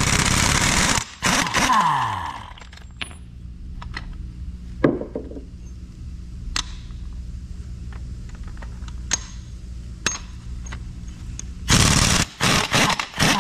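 Large pneumatic impact wrench hammering on a fastener on a Cat D9R equalizer bar. It runs a loud burst at the start, then its air motor winds down with a falling whine. After a few metallic clinks as sockets are handled, it hammers again in short bursts near the end.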